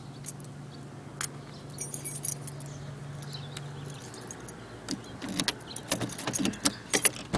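A bunch of car keys jangling, with the clicks and knocks of handling them and getting into a car. The clicks grow busier over the last two seconds, with a couple of sharp, louder knocks near the end.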